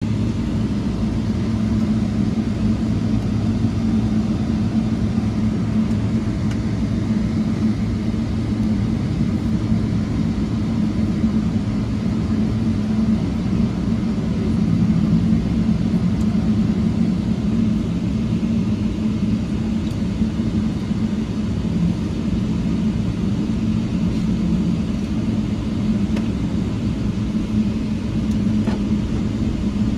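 An airliner's jet engines at idle, heard from inside the cabin during taxiing: a steady low rumble with an unchanging hum.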